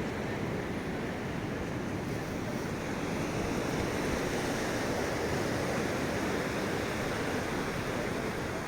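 Steady wash of ocean surf breaking on the beach, swelling slightly towards the middle, with wind on the microphone.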